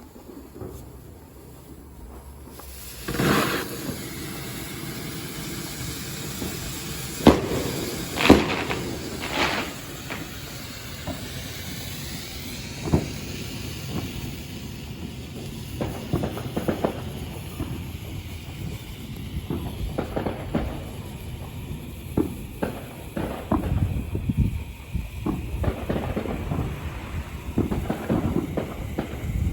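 A firework going off: a hissing rush a few seconds in, followed by four sharp bangs spread over several seconds. After that, low irregular rumbling, likely wind on the microphone.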